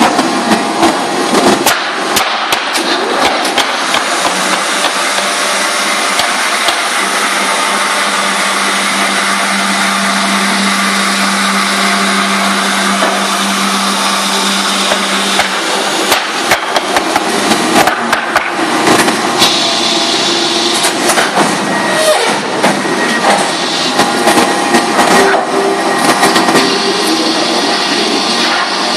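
Paper-converting plant machinery running, with a steady mechanical din and frequent sharp clatter and knocks, busier in the second half. A steady low hum starts a few seconds in and stops about halfway through.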